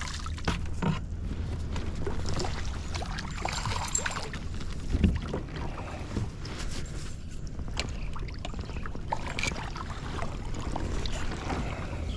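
Low, steady rumble of wind on the microphone, with scattered small knocks and clicks of handling and gear.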